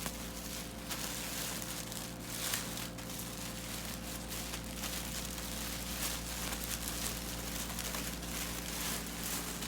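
A bag rustling and crinkling as it is opened and rummaged through by hand, in many small irregular crackles.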